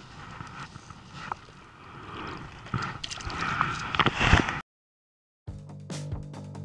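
Water splashing and rustling handling noise as a small yellowback seabream is hauled out of the sea onto an inflatable boat, with clicks and splashes building to the loudest point just before a sudden cut. After a moment of silence, background guitar music starts.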